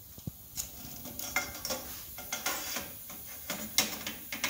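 Irregular metallic clicks, knocks and rattles as the plasma torch holder bracket on a CNC gantry is moved and adjusted by hand, with several sharper clicks in the second half.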